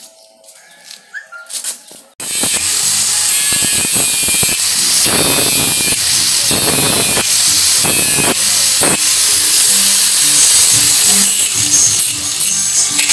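Handheld angle grinder cutting metal, starting abruptly about two seconds in and running loud and steady, with background music over it.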